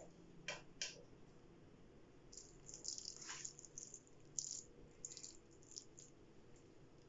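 Faint clicks and soft scraping of a spoon moving grated-carrot halwa around on a ceramic plate, in short strokes.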